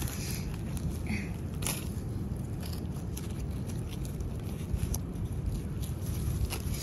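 Dry fallen leaves crackling and rustling as a hand parts them and handles a clump of oyster mushrooms on a log, with scattered sharp crackles over a steady low rumble.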